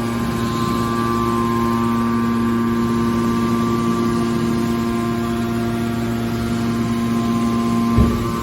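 Hydraulic metal baler running, its power unit giving a steady, even hum, with a single short thump near the end.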